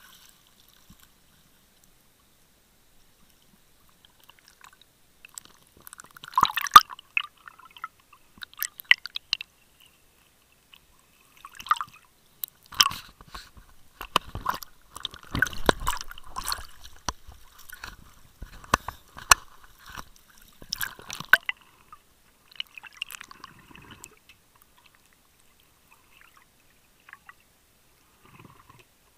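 Water sloshing against a waterproof camera case at the surface, with irregular clicks, knocks and crackles as the case is handled and bumped. The knocking starts a few seconds in and thins out near the end.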